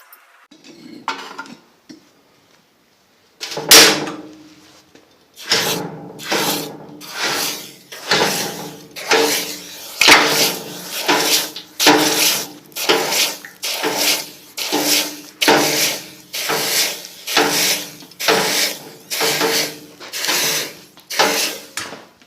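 Hand hammer striking hot 5160 spring steel on an anvil while drawing it out to a taper. One blow about 4 s in, then steady blows about two a second, each with a short metallic ring.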